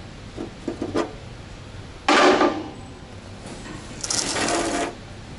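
Metal tools and brake parts being handled and set down: a few light clinks, then a loud short rattle about two seconds in and a longer clatter about four seconds in.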